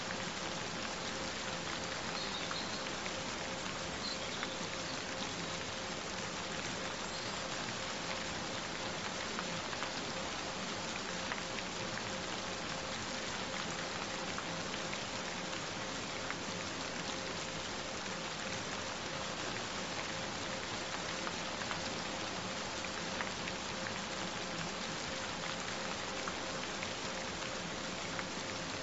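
Steady rain, with small drop ticks through an even hiss. A faint steady mid-pitched tone runs beneath it.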